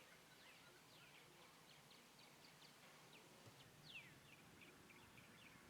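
Faint bird calls: a run of short, quick downward-sliding chirps, with one longer falling call about four seconds in.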